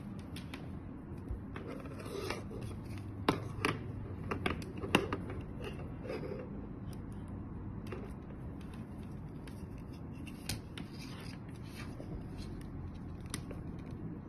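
Small clicks, taps and rubbing as white plastic cables and DC barrel-plug connectors are handled, with a cluster of sharper clicks a few seconds in.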